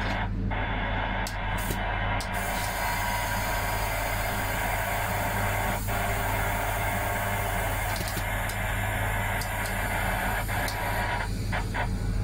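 An Intercity train hauled by a V63 electric locomotive, heard from on board while running: a steady low hum under a loud rushing rail noise, with a few clicks. The rushing drops away abruptly about eleven seconds in, leaving the hum.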